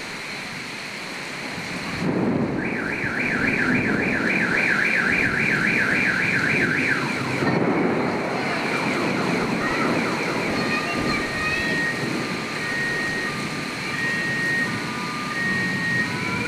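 Heavy rain falling steadily, with a car alarm going off: a fast warbling tone for about four seconds, then beeps alternating between two pitches.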